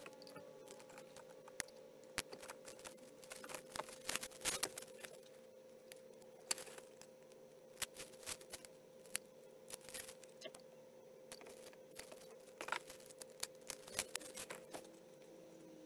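Irregular clicks, crackles and rustles of plastic being handled close by: PVC pipe and a plastic bag. A faint steady hum sits underneath.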